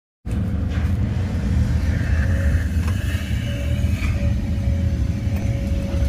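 Steady low machine rumble, with a faint steady hum coming in about halfway through and a few light clicks.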